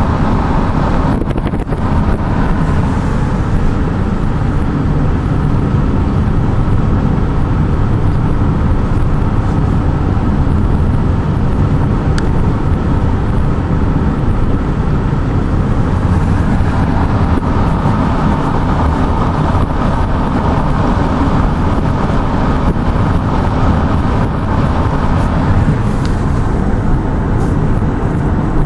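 A car driving steadily, its engine and tyre noise running without change.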